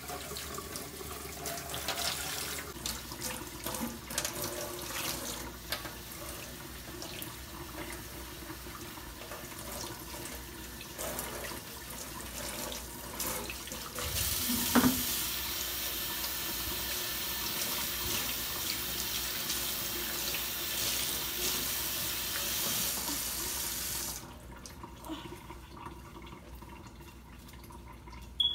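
Kitchen-sink tap water running over a child's head as his hair is rinsed and scrubbed by hand, with irregular splashing and rubbing sounds. About halfway through there is a bump and the tap runs in a steady hiss; it stops a few seconds before the end.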